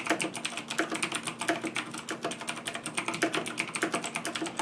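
Razer BlackWidow Ultimate Chroma mechanical keyboard being typed on fast: a steady stream of sharp key clicks, several a second.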